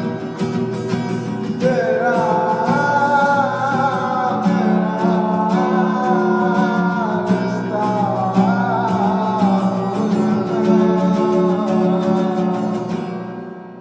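Hindi film song: guitar over a steady beat, with a wavering sung melody coming in about two seconds in, fading out near the end.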